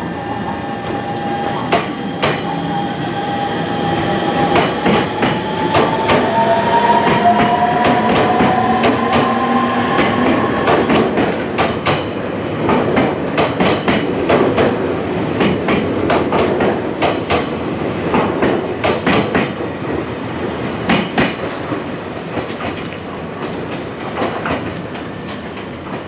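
Nankai 50000 series rapi:t electric train pulling out and accelerating. Its motor whine climbs slowly in pitch over the first ten seconds or so, and its wheels click over the rail joints throughout.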